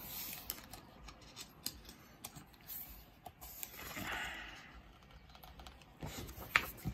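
Pages of a large hardcover art book being handled and turned: paper rustling with a scatter of small clicks and taps, a sliding swish about four seconds in, and a sharper tap near the end.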